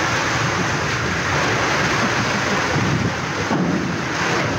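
Rough sea breaking against a ship's side and washing across the steel deck, a steady rush of water, with wind buffeting the microphone.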